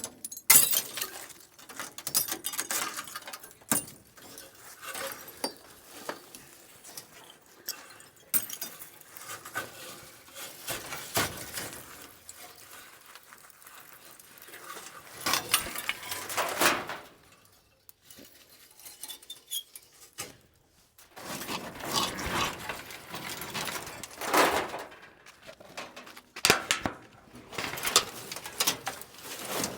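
Irregular clinking, knocking and scraping of metal and glass debris being rummaged through and pulled apart in a burnt-out car wreck, with short rattles and clatters coming and going.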